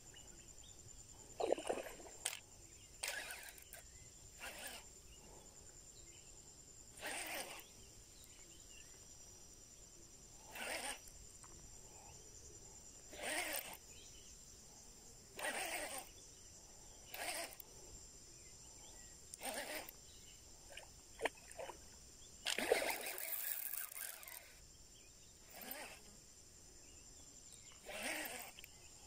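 Baitcasting reel cranked in short bursts, about every two to three seconds, as a lure is twitched and retrieved, over a steady high-pitched drone of forest insects.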